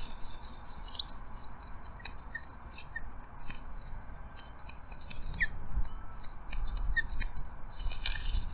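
Ospreys moving about on their stick nest close to the nest microphone: a run of dry crackles, clicks and scratches from sticks and feathers, with a few brief, faint, high chirps and a low rumble building in the second half.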